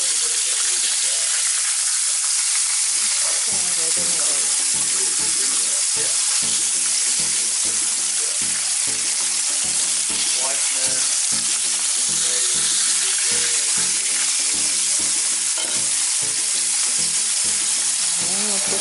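Breaded chicken tenders deep-frying in hot oil in a pan, sizzling steadily.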